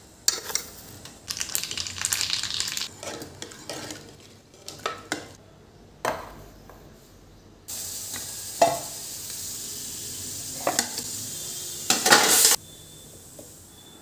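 Seeds sizzling and crackling in hot oil in a small steel tadka ladle, in uneven bursts. Later there is a steady hiss with sharp clinks and scrapes of stainless-steel cookware as steamed idlis are lifted from an idli plate. This part is loudest near the end and stops abruptly.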